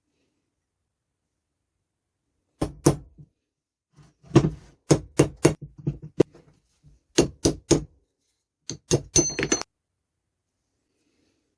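A series of sharp knocks and clinks from metal vise parts being struck or handled, in irregular clusters that start a few seconds in, the last few ringing briefly.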